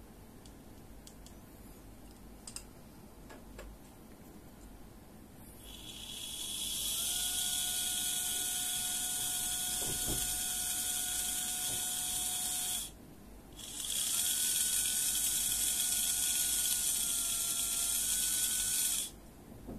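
Brushed DC motor run from a joystick-controlled speed controller: it spins up about six seconds in and runs with a steady whine over a high brush hiss, stops briefly near the middle, starts again, and cuts off suddenly near the end.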